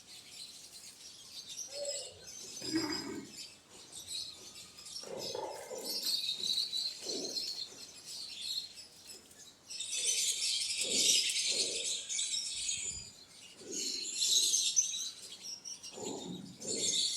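Quail chirping, many short high calls overlapping, with lower calls scattered between them and a dense flurry of chirps about ten seconds in.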